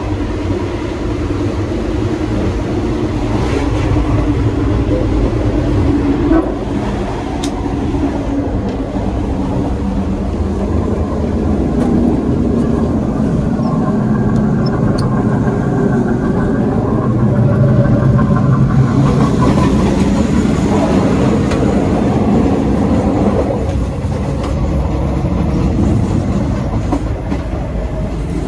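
Moving passenger train heard from aboard a vintage third-class carriage: a loud, steady rumble and rattle of the car running over the rails, with a few sharp clicks along the way.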